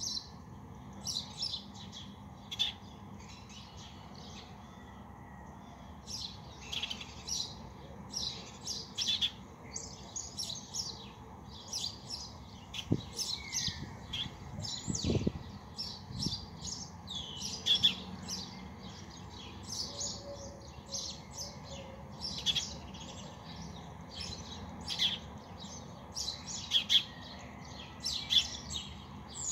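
Small birds chirping in a dawn chorus, many short high chirps following one another without pause. A couple of dull low thumps come about halfway through.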